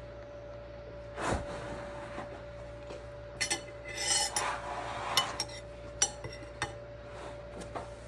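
Kitchen utensils clinking and scraping against dishes: a thump about a second in, a run of clinks and scraping in the middle, then a few sharp clicks, over a faint steady hum that stops near the end.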